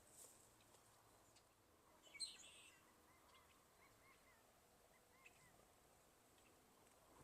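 Faint bird calls in the open: a short, high chirpy call about two seconds in, followed by a few soft, high twittering notes.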